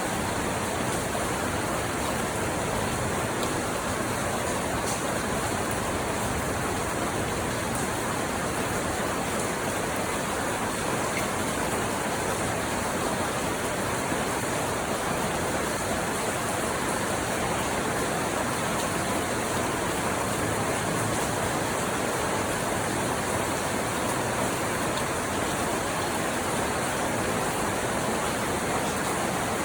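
Rain falling steadily, an even unbroken rush of noise with no separate drops standing out.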